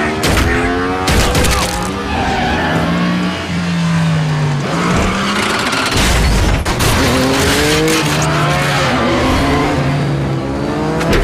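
Motorcycle engines racing, their pitch rising and falling as the riders rev and shift. Sharp impacts cut through near the start and about a second and a half in. Around six seconds in there is a crash as a motorcycle goes down on its side and scrapes along the road.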